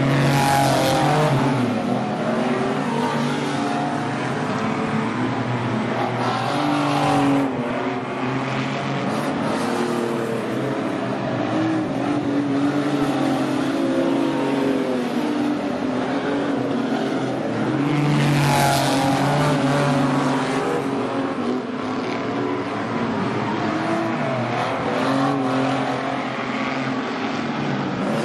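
Several speedway stock car engines running together on a dirt oval, their notes rising and falling as the cars lap. Two cars pass louder and closer, about a second in and again around 19 seconds.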